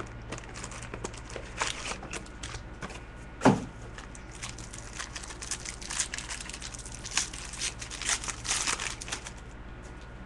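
A box of football trading cards being opened: packaging crinkling and tearing, with scattered small clicks and rustles of handling and one louder thump about three and a half seconds in.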